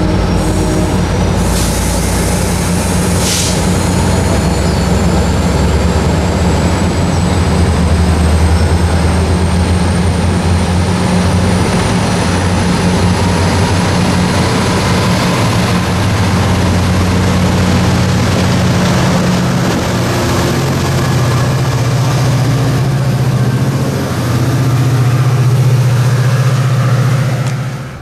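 MARC commuter train's bilevel passenger cars rolling past close at speed: a loud, steady rumble and rush of wheels on rail. A low hum grows stronger near the end, and the sound cuts off abruptly.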